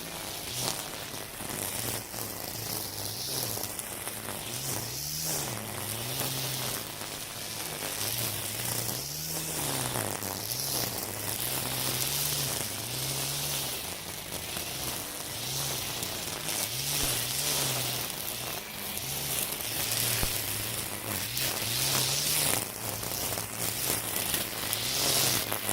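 Makita 40V battery string trimmer running, its motor pitch rising and falling again and again as the spinning nylon line cuts into thick weeds, over a steady hiss from the line slashing through the grass.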